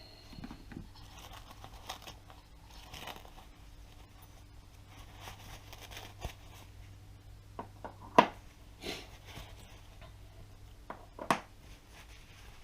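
A paper shop towel rustling and crinkling as it is unwrapped from a pair of billet aluminium shift paddles, with a few sharp knocks, the loudest about eight seconds in and again about eleven seconds in.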